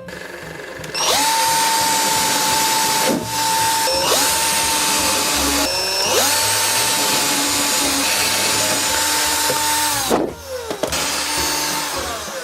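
Electric drill boring the marked holes: the motor whine rises as it spins up about a second in, then runs steadily in three spells, dropping in pitch and restarting twice, and winds down with a falling whine near the end.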